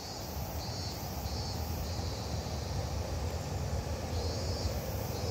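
Cicadas singing in the trees, a high pulsing chorus a little under two pulses a second, over a low gusty rumble of wind on the microphone that picks up at the start.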